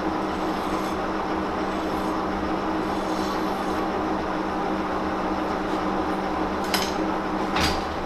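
Monarch CY engine lathe running steadily with a constant geared hum, while a hand file is drawn over the spinning threaded rod to deburr the thread crests. Two short metallic clinks near the end.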